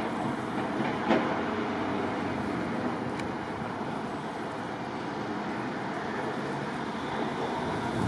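Steady rushing background noise with one sharp knock about a second in and a fainter tick about three seconds in.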